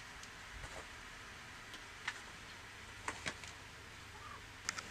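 Light clicks and taps of a cat's claws and paws against a wire pet cage and a padded panel: one about two seconds in, a quick pair a second later, and another pair near the end, over a steady hiss.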